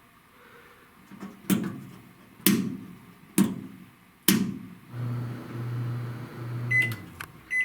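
Panasonic inverter microwave oven: four sharp clicks about a second apart, then a low steady hum for about two seconds, then short high keypad beeps near the end.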